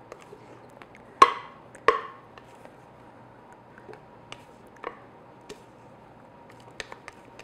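Utensil and bowl knocks while meringue is scraped from a mixer bowl into a stainless steel mixing bowl: two sharp knocks with a brief ring under a second apart, then a few faint clicks.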